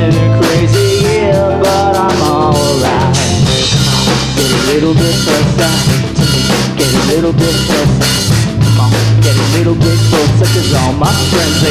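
Live rock band playing: a male voice singing over a drum kit with regular snare and kick hits, a steady electric bass line and electric guitars.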